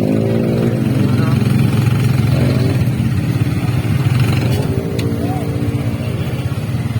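Engine of a moving passenger vehicle running steadily, a continuous low drone, with people's voices over it near the start and again about four seconds in.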